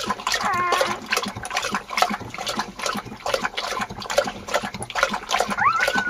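Kangal dog lapping and slurping wet, warm food from a bowl, a quick irregular run of wet smacks and clicks. Newborn puppies whine over it: one high whine falls in pitch in the first second and another rises near the end.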